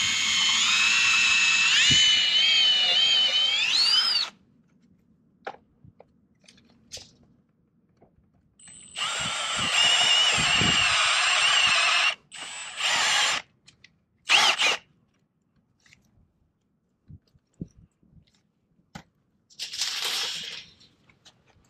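Cordless drill boring holes into a PVC splash rail: it runs for about four seconds, its whine rising just before it stops, then after a pause runs again for about three seconds, followed by two short bursts.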